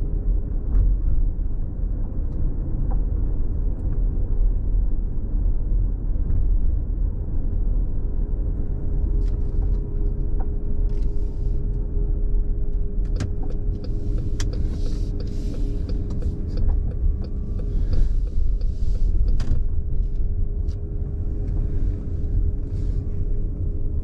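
Cabin sound of a 2020 Chrysler Pacifica Hybrid driving slowly: a steady low road-and-tyre rumble with a constant hum from the hybrid drivetrain's motor. Brief hissy swells come and go about halfway through.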